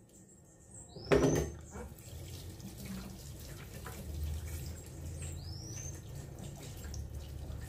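Tap water running into a stainless-steel sink and splashing over a plucked pigeon carcass as it is rinsed by hand. The water comes on with a sudden loud splash about a second in, then runs steadily.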